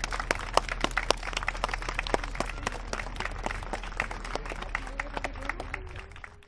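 Audience applauding with dense, irregular clapping that thins and fades near the end, a voice rising briefly over it as it dies away.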